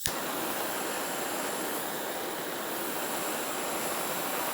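Pen-style butane torch lighter ignited with a sharp piezo click, then its jet flame hissing loudly and steadily.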